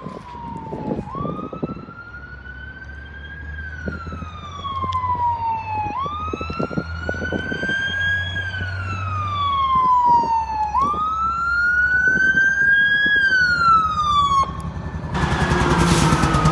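Fire ladder truck's siren sounding a slow wail, its pitch rising and falling about every five seconds, with the truck's engine running underneath. Near the end a loud, harsh blast cuts in over it.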